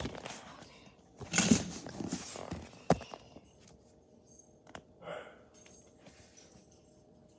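Rustling and handling noise, then a single sharp click about three seconds in, and a brief soft rustle a couple of seconds later.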